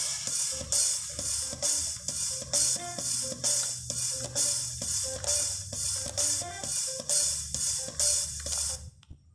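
Recorded music with a steady drum-kit beat (hi-hat, cymbal and bass drum, about two beats a second) playing from a USB pen drive through an H-Buster HBD-7200MP car CD/MP3 receiver. It cuts off suddenly about nine seconds in as the unit is paused.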